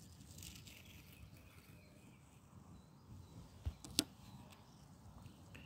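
Masking tape being peeled off a freshly spray-painted car body panel: a soft, faint rasp of tape lifting off the paint, then a low knock and a sharp click about four seconds in.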